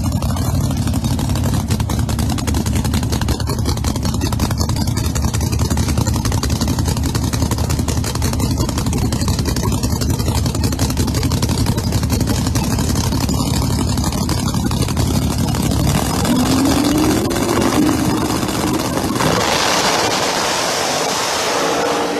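Drag-race car engines idling at the starting line with a heavy, steady low rumble. Past the middle an engine revs up in a rising pitch, and near the end a loud roar of the cars launching down the strip takes over.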